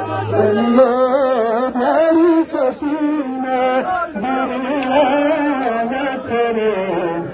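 Men's voices chanting a noha, a Shia mourning lament, in long wavering notes.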